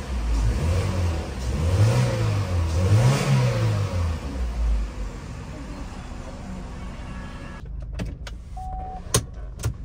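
Chevrolet Cruze engine revving up and falling back twice, then running more quietly, with no transmission whine to be heard after the repair. A few sharp clicks near the end.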